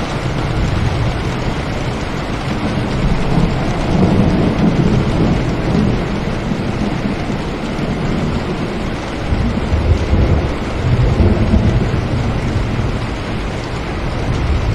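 Steady rain falling on a window, with a deep rumble underneath that swells about four seconds in and again around ten seconds in.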